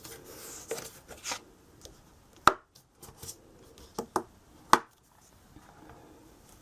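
Hard clicks and taps of a stamping platform and its magnets being handled and readjusted, with two sharper clicks about two and a half seconds in and again near five seconds, and lighter taps between them.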